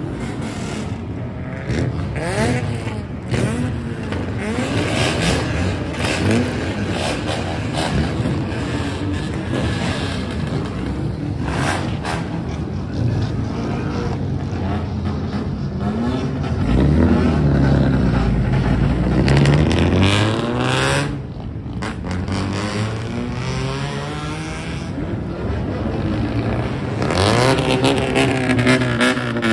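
Several modified kaido-racer cars revving their engines loudly and repeatedly, the exhaust note rising and falling in pitch over and over. The loudest stretch comes about two-thirds of the way in as a deep rumbling rev builds and falls away, with another burst of revving near the end.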